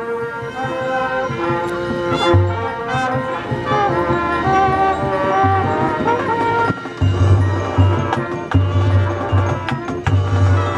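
Marching band playing: brass holding chords with quick runs of notes over percussion, and heavy low pulses entering about two-thirds of the way through.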